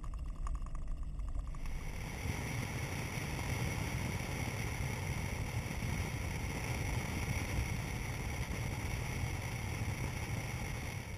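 Four-wheel-drive ute driving along a dirt road: a continuous rumble of tyres, engine and wind. About two seconds in, it opens into a fuller, brighter rush as heard from outside the vehicle's side.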